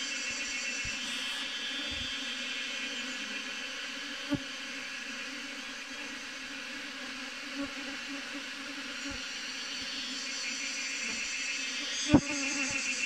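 Swarm of honey bees buzzing steadily around their hanging cluster, a continuous low hum. A sharp click sounds about four seconds in, and a louder one comes near the end.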